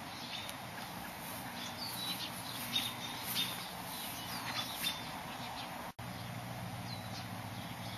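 Small birds chirping now and then outdoors, a handful of short, high chirps over a steady low hum and background hiss. The sound cuts out for an instant about six seconds in.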